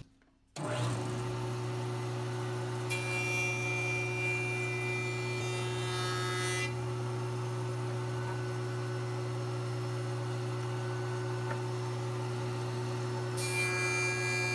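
Jointer running steadily with a low motor hum. Its sound turns brighter and harsher twice, from about 3 to 6.5 seconds and again near the end, as the edge of a glued-up Baltic birch plywood blank is pushed across the cutterhead.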